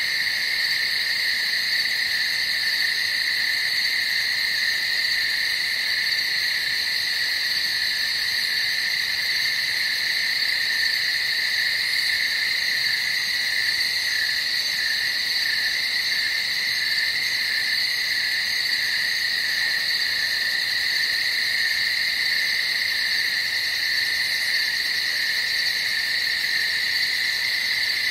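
Steady night-time ambience of a frog and insect chorus: a continuous, even, high-pitched drone with no pauses.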